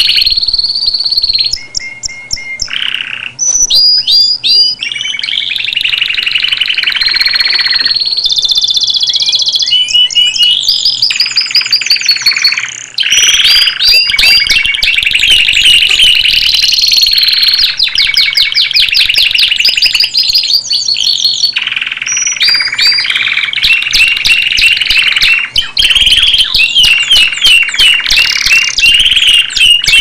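Canary singing a long, continuous song of rapid rolling trills and clear whistled notes, broken only by a few short pauses.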